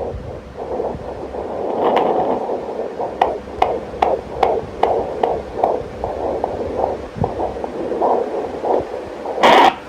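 Fetal heartbeat of one of the twins, picked up by a handheld fetal Doppler and played through its speaker: over a steady hiss, a fast, even whooshing pulse comes in about three seconds in, at about two and a half beats a second. Near the end there is a brief loud scraping rush of noise.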